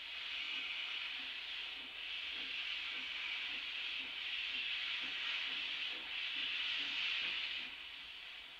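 Steam hissing from narrow-gauge steam locomotive No. 315, a Denver & Rio Grande Western 2-8-0, as it moves off. The hiss is steady with brief dips every couple of seconds and fades near the end.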